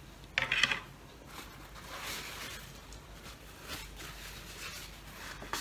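A metal spoon clinks sharply against a frying pan about half a second in, followed by a paper napkin rustling and crinkling several times.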